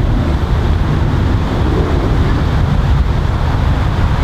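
Wind buffeting the microphone: a steady, loud, low rumble with no club strike.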